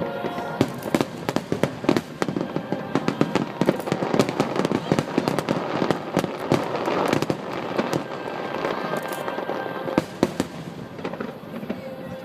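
Aerial fireworks bursting in rapid, irregular succession with dense crackling, thickest in the middle.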